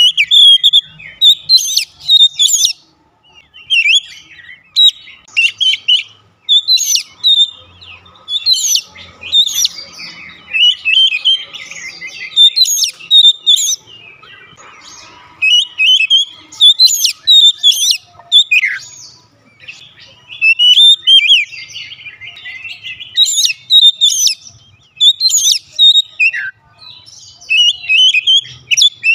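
Oriental magpie-robin singing: loud, varied whistled phrases in quick bursts with short pauses between them, including a couple of sharp falling notes.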